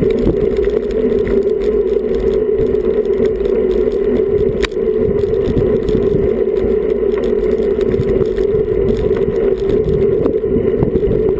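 Road bicycle riding on asphalt at about 20 km/h, heard through an action camera: steady rolling and wind noise with rattling from the bike. A single sharp click comes about four and a half seconds in.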